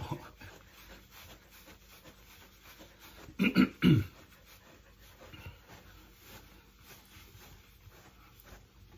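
A Keeshond gives two short vocal sounds a little past three and a half seconds in, each falling in pitch. Around them, a brush faintly rasps through the dog's thick coat.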